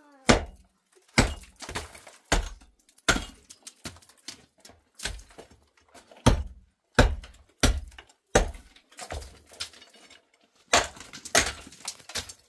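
Hammer blows chipping concrete block away around a window opening in a block wall: a long series of sharp strikes, one or two a second.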